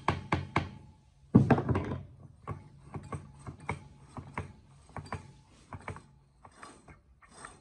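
Mallet tapping the cylinder block of a 175cc parallel-twin motorcycle engine down over its studs: four quick knocks, then a louder knock about a second and a half in. Lighter, irregular metallic clicks and rattles follow as the block is worked down by hand.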